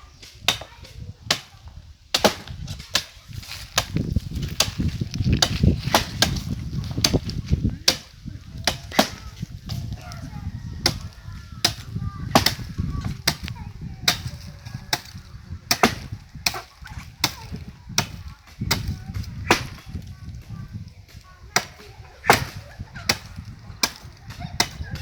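Blade chopping by hand into a palm tree trunk: a long run of sharp strikes, irregular, roughly one or two a second.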